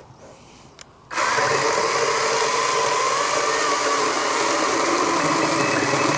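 Battery-powered Wild Badger 16-inch chainsaw starting abruptly about a second in and running steadily with a motor-and-chain whine, cutting through small firewood rounds.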